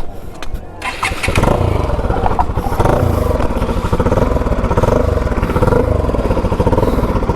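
Motorcycle engine starting up about a second in, then running steadily.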